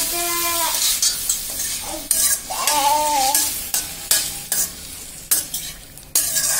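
A steel slotted spoon stirring raw banana cubes through a boiling spiced liquid in an iron kadai. The spoon clinks and scrapes against the pan again and again over a light sizzle.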